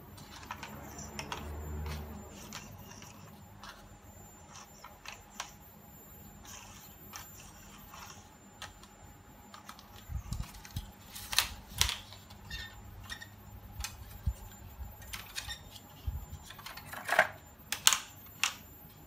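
Scattered plastic clicks and light knocks as a hand picks up and turns the Hubsan H507A+ drone's plastic body, its motors not running, with a few louder clatters near the middle and near the end.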